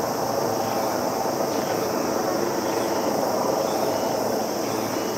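Faint distant voice over a public-address loudspeaker (disaster-prevention radio) counting down the seconds to a rocket launch, about one number a second, heard over a steady drone of insects.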